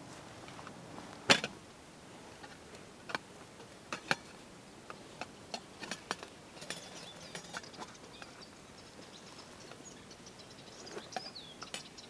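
Camp cooking gear being handled on the ground: a sharp knock about a second in, a few more knocks, then a run of small clicks and taps. A bird chirps a few times near the end.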